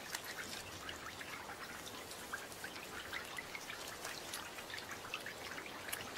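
Steady rainfall: a constant hiss of falling water dotted with many small, irregular drop clicks.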